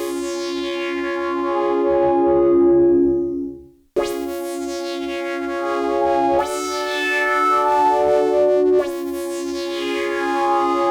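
Pittsburgh Modular Taiga analog synthesizer playing sustained chords, each entry starting bright and then mellowing as the filter closes. The first chord fades out about three and a half seconds in, a new chord starts at four seconds, and the notes change twice more, near six and a half and nine seconds.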